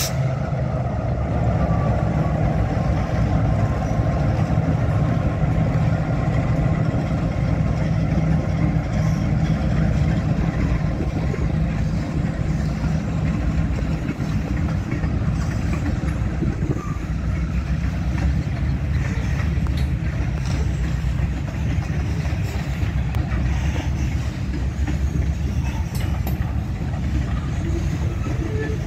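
Finger Lakes Railway diesel freight train passing: the locomotives' engines give way to the steady low rumble of freight cars rolling over the rails.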